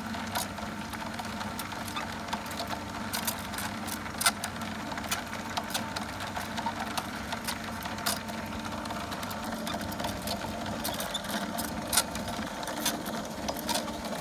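Dazzini TCI260VH quarry chain saw machine running with its chain cutting down into the stone floor: a steady mechanical hum under a constant scatter of sharp, irregular clicks and ticks, with two louder cracks about four and twelve seconds in.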